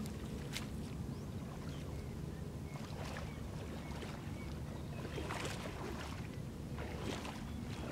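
Water splashing and sloshing as a large net is dragged through shallow, muddy water by people wading. Several short splashes come and go over a steady low rumble.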